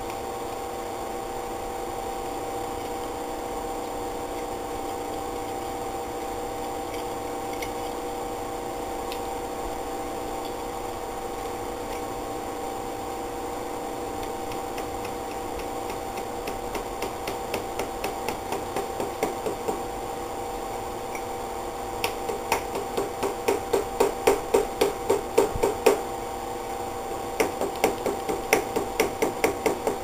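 Hammer tapping a wooden block held against a motorcycle's handlebar riser clamp. Light taps start about halfway through and build into quick runs of louder strikes, about three a second. A steady hum runs underneath.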